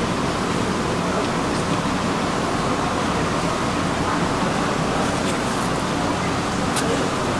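Steady background hubbub with indistinct voices under a constant, even din.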